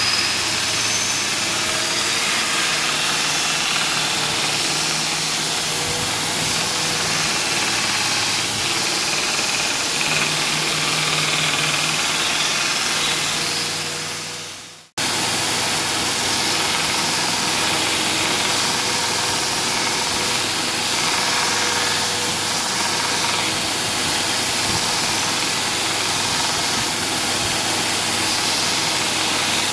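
A 2x72 belt grinder running steadily while a forged steel knife blade is ground across the belt, a hum under a loud rasping hiss of steel on the abrasive. It breaks off briefly about halfway through and resumes at once.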